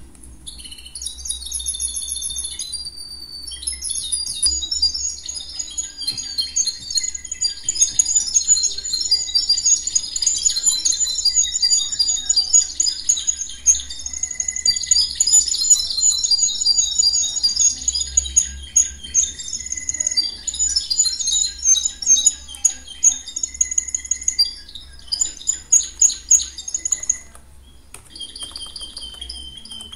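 Many birds chirping rapidly and overlapping, with a brief pause near the end, over a steady low hum.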